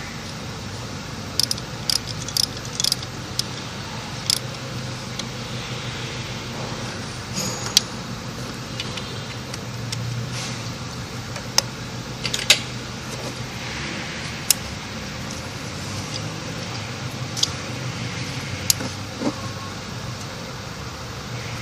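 Metal hand tools and parts clinking and tapping now and then, over a steady low hum.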